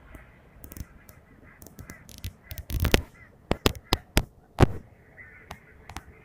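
Irregular sharp clicks and knocks, a dozen or more, with a broader scraping bump about three seconds in: handling noise of fingers and hands on a phone's microphone.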